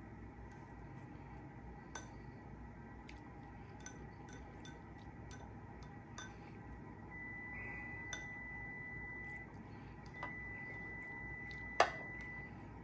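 Metal fork clinking against a plate and a small glass bowl as food is picked up, a light tap every second or two. The loudest is a sharper clink with a brief ring near the end, and a faint high steady tone comes and goes in the second half.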